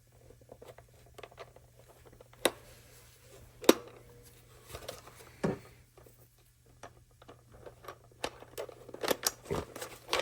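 Handling of plastic parts and packaging: scattered clicks, taps and rustles, with a few sharper knocks, the loudest about four seconds in.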